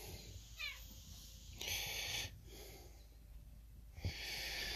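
A domestic cat gives one short, falling chirp-like meow less than a second in. Two stretches of soft hiss follow, one about a second and a half in and one near the end.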